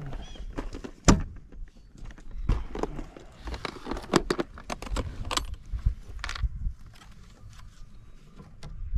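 Fishing tackle being rummaged through: irregular clicks, knocks and jangling of small hard items, thinning out near the end.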